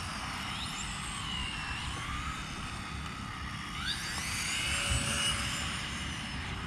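High-pitched electric whine of two small 4WD RC buggies' brushless motors and drivetrains, rising and falling with throttle. One whine climbs sharply about four seconds in as a car accelerates.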